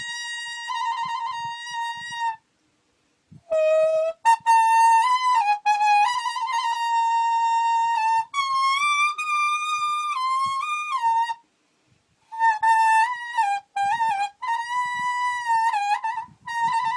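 Khmer plom slek: a leaf held to the lips and blown like a reed, playing a melody in one high voice with a wavering vibrato. The tune stops twice for about a second, once about two seconds in and again near eleven seconds.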